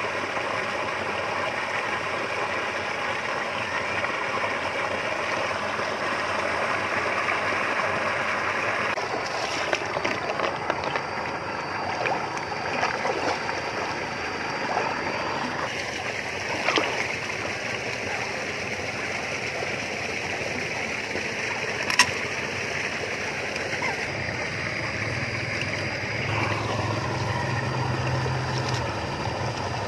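Shallow stream water running steadily, with splashing as someone wades and handles fish in it. A single sharp click about three-quarters of the way through.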